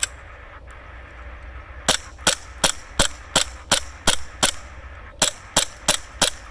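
ICS BLE XPD gas blowback airsoft pistol firing shot after shot, each a sharp pop with the slide cycling. There are about a dozen shots at roughly three a second, in two strings with a short break a little past the middle.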